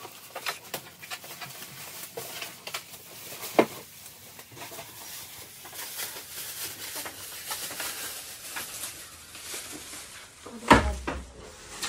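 Plastic protective bag around a large flat-screen TV rustling and crinkling as it is handled and pulled off. There is a sharp knock about three and a half seconds in and a heavier thump near the end.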